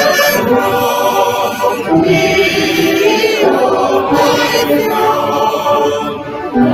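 A hymn in Welsh sung by many voices together, as choral singing.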